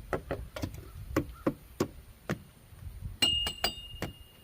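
Light knocks and taps on the parts of a Samsung refrigerator being stripped for scrap, about a dozen of them, then a clink of metal that rings on briefly about three seconds in.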